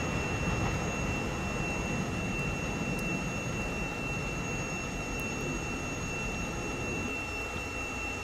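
Low rumble of a distant electric train moving off beyond the station tracks, slowly easing, with a steady high-pitched whine running under it.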